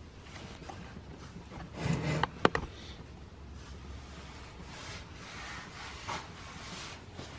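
Engine oil trickling from the oil filter mount into a plastic drain pan, with faint ticks, a short rustle about two seconds in and one sharp knock just after it.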